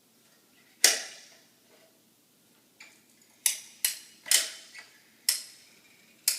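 Cove base adhesive gun, a large caulk-style gun, clicking as it is handled and pumped. One sharp click comes about a second in, then a run of about six clicks roughly half a second apart.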